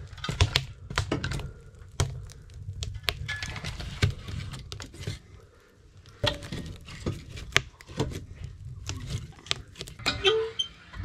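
Split firewood logs knocked and clunked into the open firebox of a rusty steel wood stove, many sharp knocks of wood against wood and metal over a low rumble, with a lull a little past the middle.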